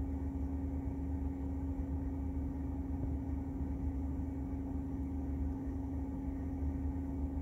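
Steady hum of a Tesla Model 3's climate control running with the air conditioning on, heard inside the parked car's cabin: one constant droning tone over a low rumble.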